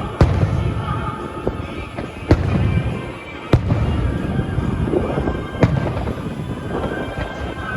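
Fireworks bursting: four sharp bangs a second or two apart, each trailing off in a rumbling echo, with a few fainter pops between them.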